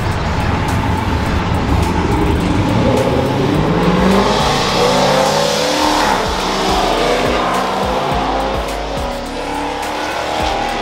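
A car engine revving hard as the car accelerates, its pitch climbing over the first few seconds and loudest about four to six seconds in.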